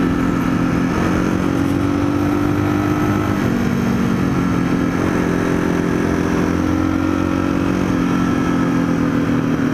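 Yamaha XT225's single-cylinder four-stroke engine running under way on the road, its pitch dipping about three seconds in, rising again about five seconds in, then easing off.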